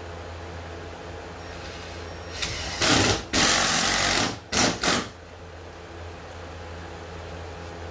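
Power screwdriver driving screws through a canoe's vinyl gunwale. It runs in a brief soft start about two and a half seconds in, then one long run of about a second and a half, then two quick short bursts.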